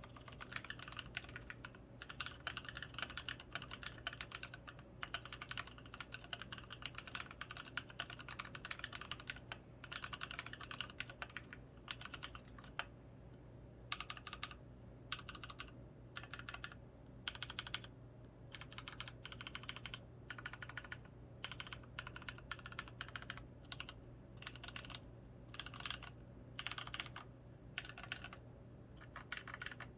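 Typing on an XO V3 mechanical keyboard with Krytox-lubed Kailh Polia tactile switches and Pudding keycaps. Fast, continuous keystrokes for the first dozen seconds, then short bursts of keystrokes separated by brief pauses.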